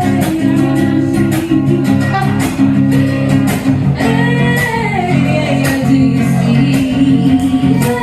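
A live band playing an instrumental passage of a song, led by guitar, over steady sustained chords.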